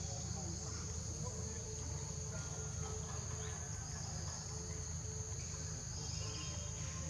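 Insects chirring in a steady high drone, over a low steady rumble.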